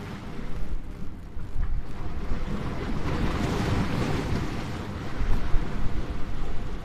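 Sea waves breaking and washing over rocks at the shore, with a wave crashing close by about halfway through. Wind buffets the microphone with a gusty rumble.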